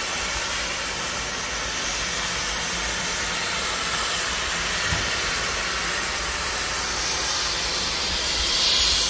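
Baldwin K-36 narrow-gauge steam locomotive No. 489 standing at rest, letting off a steady hiss of steam, which grows louder near the end.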